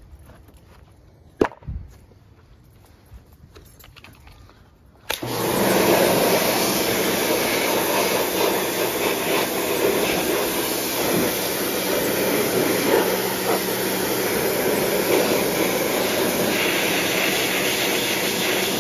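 A single sharp knock, then about five seconds in a pressure washer starts up suddenly and runs steadily with a constant hum, its water jet blasting the engine shroud and steel deck of an old Toro lawn mower.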